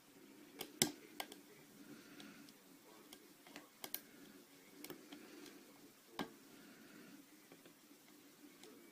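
Pick and tension wrench working the pins of a pin-tumbler padlock during single-pin picking: faint, irregular small clicks and ticks of metal on metal, a handful spread through, the loudest about a second in and again past six seconds.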